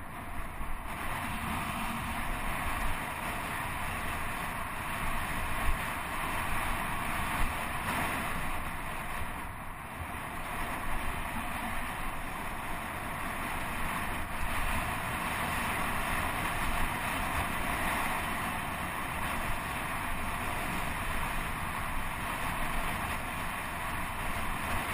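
Steady wind noise on the microphone mixed with the rumble and rattle of a mountain bike rolling over a dirt road, with a couple of brief sharp knocks about six and seven seconds in.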